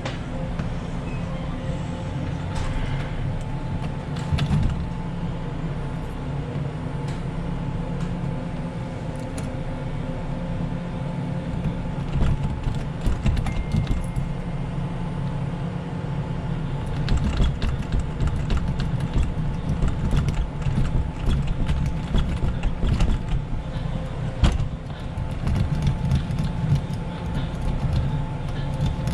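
Small metallic clicks and scrapes of a lock pick being worked in a door lock, coming in irregular runs that are busiest past the middle, over a steady low mechanical hum.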